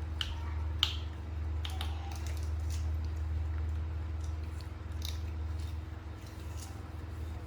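A dog chewing and crunching Indian jujube fruit: a string of short, irregular crunches over a steady low hum.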